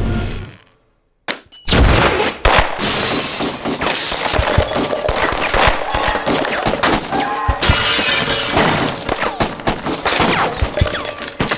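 A swell dies away into a moment of silence, then about two seconds in a continuous barrage of shattering glass and breaking objects begins, packed with sharp impacts as the shop's displays and fittings are smashed.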